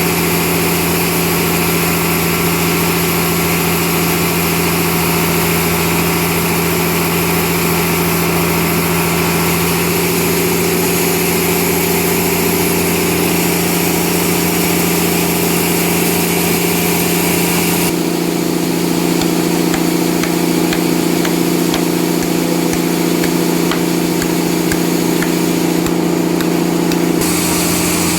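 Sawmill saw running steadily while sawing trembesi (rain tree) wood, a constant machine hum under a hiss. About 18 seconds in, the hiss drops away and the hum shifts.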